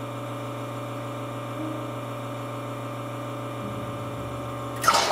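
Lelit Bianca V3 espresso machine's rotary vane pump running steadily against a blind basket during a backflush with cleaning powder. It gives a steady hum and ends with a short, louder hiss as the pump is stopped.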